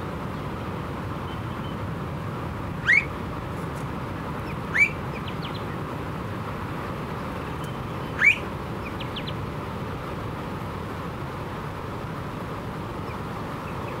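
Blue-faced honeyeater giving three short, loud, upward-sweeping calls a couple of seconds apart, over a steady low background rumble.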